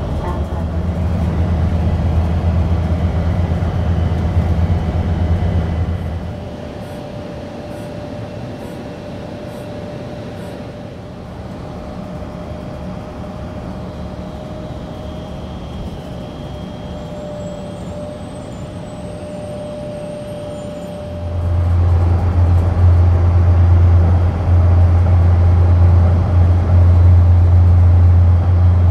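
A car driving, heard from inside the cabin: a steady low rumble of road and engine noise. It drops quieter about six seconds in and grows louder again after about twenty seconds.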